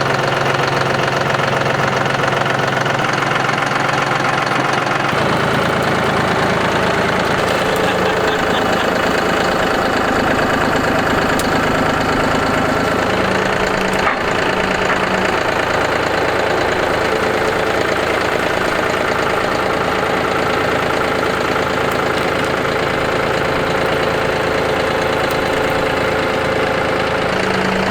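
Tractor engine running steadily while slowly pushing against a dead tree, its note shifting about five seconds in.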